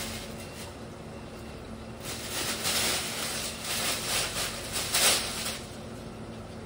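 Thin plastic bag rustling and crinkling in irregular bursts as it is handled, busiest from about two seconds in until near the end, over a faint steady hum.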